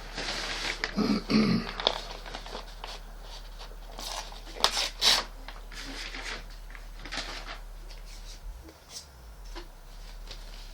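Sheet of paper rustling as it is handled, with scattered light clicks and knocks.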